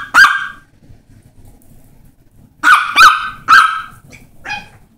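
Small Yorkshire terrier barking in high, sharp yaps: one bark at the start, then after a pause three loud barks in quick succession, followed by two fainter ones.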